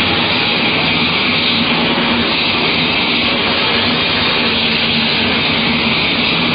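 A steady, loud rushing noise with a faint low hum under it, unbroken and without knocks or clanks.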